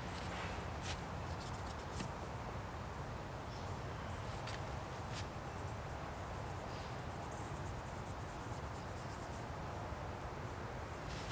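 Steady low outdoor background rumble, with scattered faint clicks and ticks, mostly in the first five seconds.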